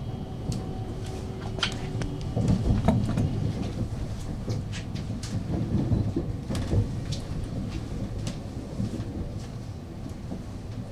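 Electric train running in to its stop: a low rumble with scattered knocks and clicks, heaviest between about two and seven seconds in, and a faint steady hum that stops about two seconds in.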